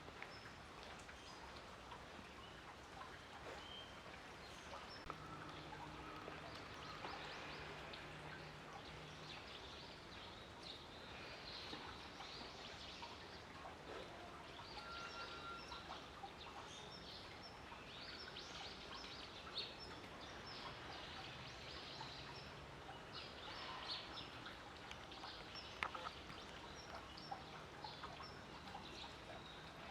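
Faint outdoor background noise with many short, high chirp-like sounds scattered through it and a few small clicks.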